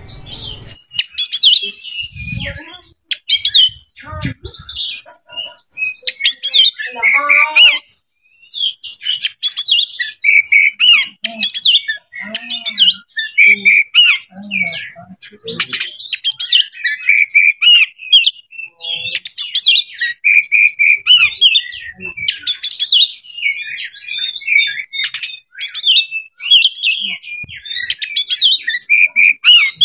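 Oriental magpie-robin (kacer) singing almost without a break, a fast, varied run of loud whistles, chirps and trills, with a short pause about eight seconds in.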